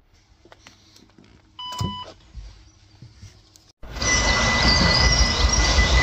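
An OV-chipkaart ticket-gate reader gives one short beep about two seconds in. From about four seconds in, a loud steady rushing noise with a thin high tone running through it comes from a yellow NS double-deck intercity train approaching the platform.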